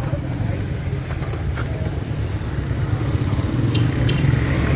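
Steady low rumble of motor-vehicle engines and street traffic. A faint high-pitched whine runs through the first couple of seconds.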